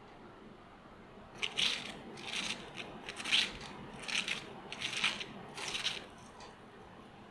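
Crispy breadcrumb crust of a fried chicken cutlet (Egyptian chicken pané) crackling and crunching as hands tear it apart. The crunching comes in about six short bursts, starting a little over a second in and stopping about a second before the end.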